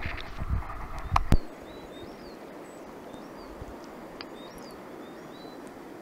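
Muffled water rumble and handling knocks from a camera at the water's surface, ending in a sharp knock about a second and a half in. After that, small birds chirp again and again over a faint steady hiss.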